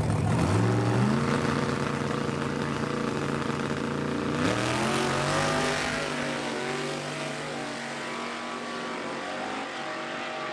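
Drag-racing pickup truck's engine at full throttle, launching down the strip. The engine pitch climbs in two steps, and the sound fades as the truck pulls away.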